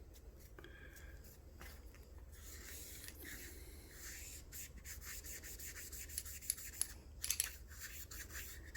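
Faint rubbing and scraping of a cotton swab worked through a pistol barrel to wipe out the gun scrubber and carbon, with a few light clicks near the end.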